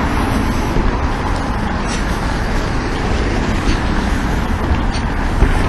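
Road traffic noise: a steady rush of passing vehicles with a heavy low rumble.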